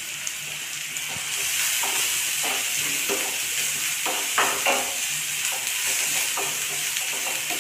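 Chopped onion sizzling in hot ghee in a nonstick frying pan while a spatula stirs it. The sizzle grows louder about a second in, and scrapes and taps of the spatula on the pan come through it, the loudest just past the middle.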